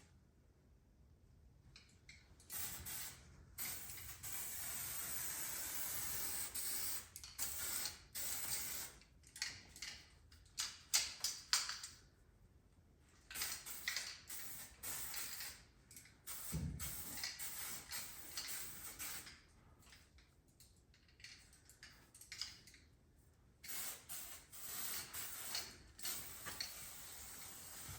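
Aerosol can of 2K epoxy primer spraying in hissing bursts: one long pass of about four seconds, then many short passes with quiet gaps between them.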